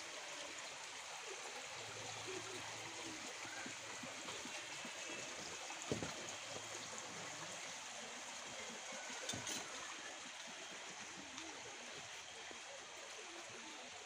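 Steady rush of a stream flowing over rocks, with a sharp knock about six seconds in and another a few seconds later.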